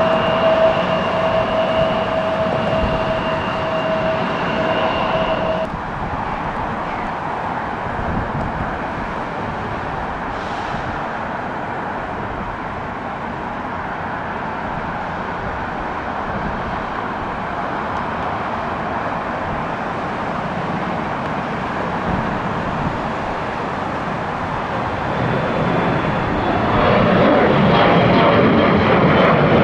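Embraer E175 jet airliner's twin turbofan engines during takeoff: a continuous jet rush, with two steady whining tones that stop abruptly about six seconds in. The rush swells louder in the last few seconds.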